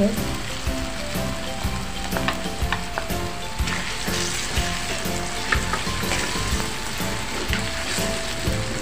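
Ground spice paste sizzling in hot oil in a metal pan while a wooden spatula stirs it, with scattered sharp scrapes and taps of the spatula against the pan.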